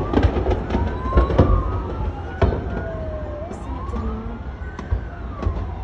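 An emergency vehicle's siren wails, its pitch rising and falling slowly over a couple of seconds each way. Sharp pops and cracks cut across it, a cluster in the first second and a half and then a few single ones.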